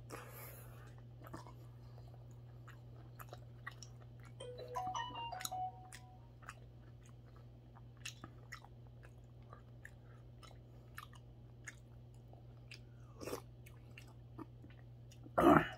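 A person chewing and eating mackerel rice porridge off a metal spoon: soft wet mouth sounds and many small clicks, over a steady low hum. A short, louder rush of noise comes near the end.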